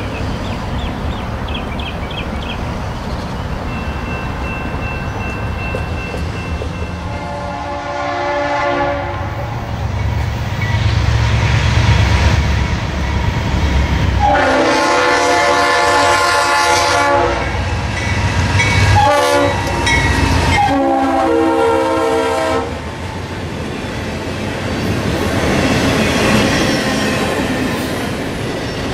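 A GE Dash 8 diesel locomotive sounds its Nathan Airchime RS-5T horn in the long, long, short, long grade-crossing pattern over the rumble of its engine as it approaches. Then double-stack container cars roll past, their wheels clacking over the rail joints.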